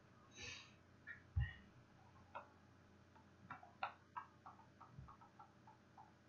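Faint clicking at a computer: a sharp knock about a second and a half in, then a run of quick light ticks, about four a second, through the second half.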